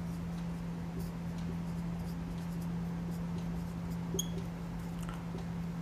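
Marker pen writing on a whiteboard: faint scratchy taps of the strokes, with a short squeak of the marker tip about four seconds in. A steady low hum runs underneath.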